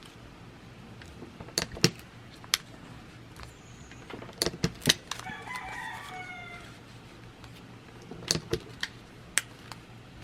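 Scattered sharp clicks and snaps of a stapleless stapler and paper being handled, the loudest about two seconds in. About five seconds in, a rooster crows once in the background, the call lasting under two seconds and falling slightly at the end.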